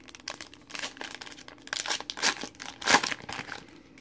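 Foil trading-card pack wrapper being torn open and crinkled: a run of crackling rips, loudest about two to three seconds in, stopping shortly before the end.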